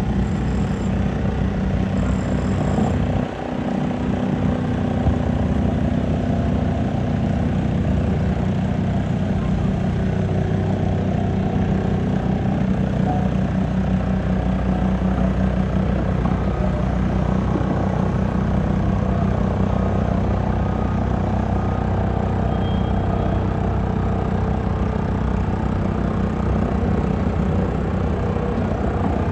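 An engine running steadily at constant speed, a low hum whose pitch does not change, with a brief dip in loudness about three seconds in.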